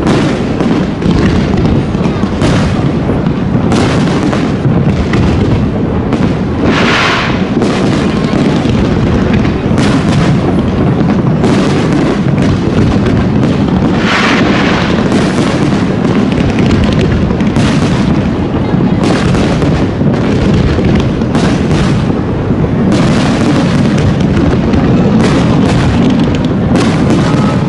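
Fireworks display: a continuous barrage of booms and crackles, with stronger bursts about 7 and 14 seconds in.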